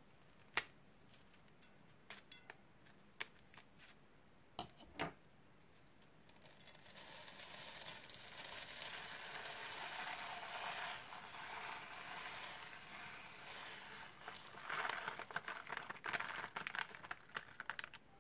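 Scissors snip the tip off a plastic piping bag with a single sharp click, followed by a few light clicks of handling. Then small plastic seed beads pour out of the bag onto slime in a steady rushing stream, giving way to scattered crackling clicks as the last beads fall.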